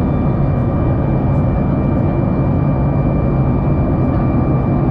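Steady in-cabin noise of a Boeing 737 MAX 8 climbing at climb power: its CFM LEAP-1B turbofan engines and the rush of air past the fuselage. It is a deep, even hum with a faint steady whine above it.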